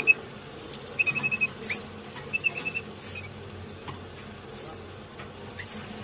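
Canary nestlings cheeping in the nest: short runs of rapid, high peeps, twice in quick succession, with scattered single chirps between.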